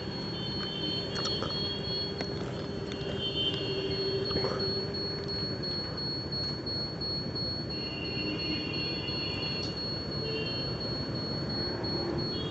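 Street traffic noise heard from a scooter waiting in a queue of cars, a steady rumble with several high, wavering tones that come and go: near the start, about three seconds in, and again around eight to nine seconds in.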